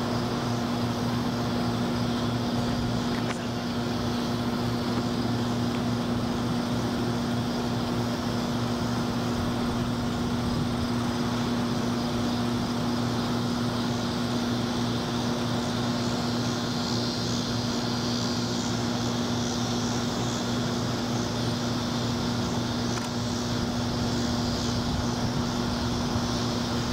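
Steady mechanical hum with a low, constant tone, from an air-conditioning unit running outside the building.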